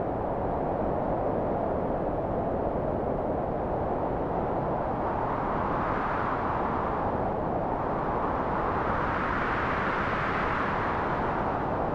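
Storm wind blowing hard and steadily, with gusts swelling about halfway through and again near the end.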